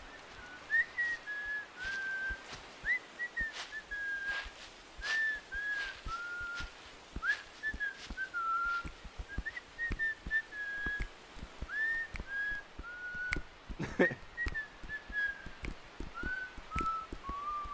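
A person whistling a slow tune in short phrases that mostly fall in pitch, over the crunch and rustle of footsteps through dry grass and brush, with one louder snap about fourteen seconds in.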